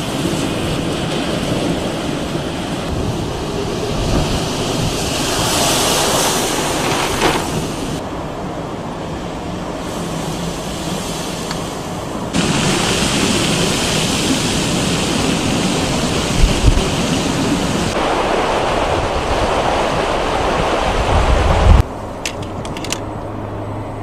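Wind buffeting the microphone over surf and churning broken ice along a shore. The noise changes abruptly several times, with a few faint clicks near the end.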